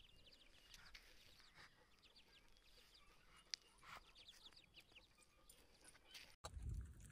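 Faint, continual high peeping of a brood of Muscovy ducklings, many short chirps that slide down in pitch. Near the end the sound cuts out for an instant and a louder low rumble begins.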